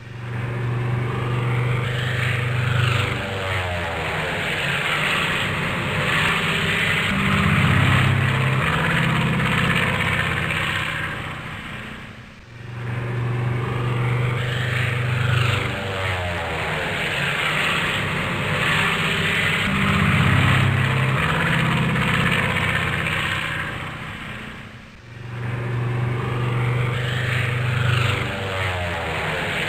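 Biplane's propeller engine flying past, its pitch dropping as it goes by. The pass-by repeats three times, with a brief dip in loudness between each.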